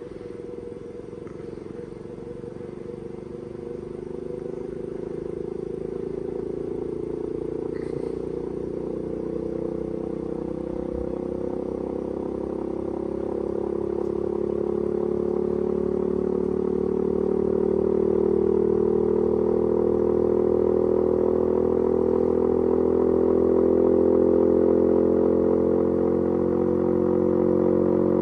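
New Zealand-made RH White electric fire siren winding up slowly: a low, steady siren tone that grows louder over the first eighteen seconds or so, then holds. It is running well below full speed because the undersized 220-volt VFD cannot drive its 380-volt motor any faster.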